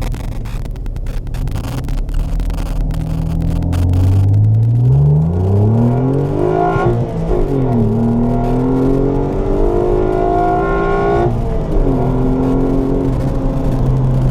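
Renault Clio V6's 3-litre V6 engine running, then revving: its note climbs, dips, climbs again, and drops back sharply about eleven seconds in to a steady lower note. Wind buffets the microphone.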